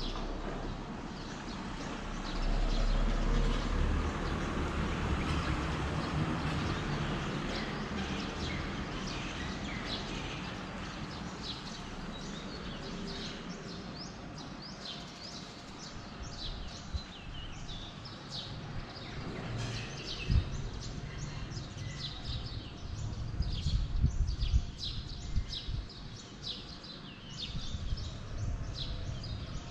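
Birds chirping, many short high calls in quick succession, busier in the second half, over a low rumble, with a few dull thumps in the second half.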